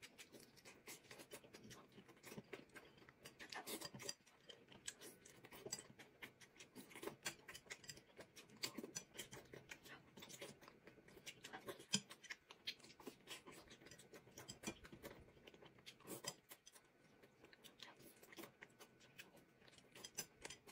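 Faint eating sounds: quiet chewing with scattered small clicks and smacks, one slightly louder click about halfway through.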